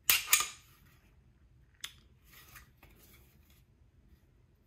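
Ruger-57 pistol handled by hand: a quick double metallic scrape of the steel slide running on the frame at the start, then a single sharp click nearly two seconds in, with faint handling rustle after.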